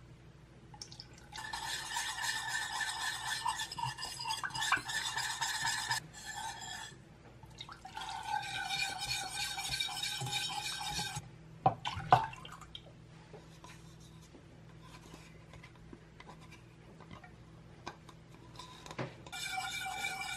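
Milk poured into a stainless steel saucepan and stirred into caramel paste with a spatula scraping the pan, in a few stretches of several seconds, with a couple of sharp knocks about twelve seconds in.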